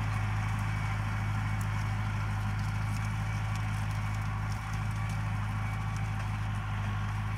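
Tractor engine running steadily, a low even hum with no change in pitch, as it pulls a granular fertilizer spreader along the row.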